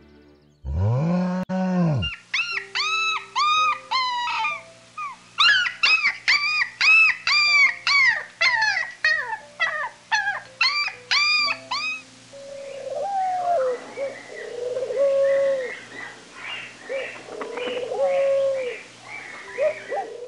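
Animal calls over soft background music: a run of short, high, arching cries, about two a second, giving way in the second half to lower, wavering calls.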